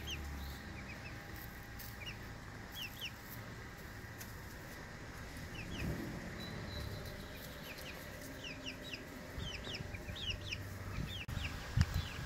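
Chicks peeping: short, high cheeps scattered throughout, coming in quicker runs in the second half. A couple of low knocks near the end.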